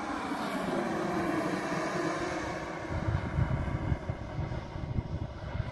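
Radio-controlled model BD-5 aircraft flying past: its motor tone swells and then falls in pitch as it goes by. A gusty low rumble follows from about halfway through.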